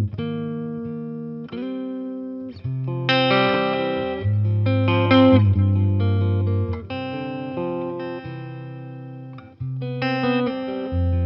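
Eastman T185MX semi-hollow electric guitar played solo through a Boss Nextone amp, improvising low bass notes under plucked chords and melody notes.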